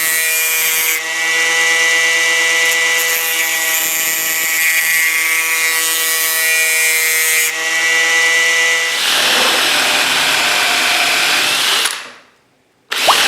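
Angle grinder with a thin zipcut cut-off disc running and grinding steel, sharpening a spade bit: a steady motor whine over a grinding hiss, with brief dips about a second in and again near seven and a half seconds. About nine seconds in the whine gives way to a rougher, noisier sound, which fades out and stops for a moment before starting again near the end.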